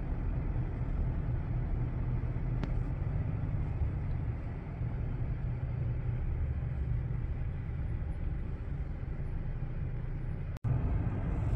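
Steady road and engine rumble inside a moving car's cabin. It breaks off for an instant near the end.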